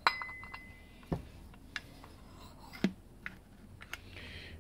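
Metal parts of an SU carburettor clicking and knocking as the piston and dashpot are handled and fitted onto the carburettor body. A sharp click with a short metallic ring comes first, then several scattered light knocks.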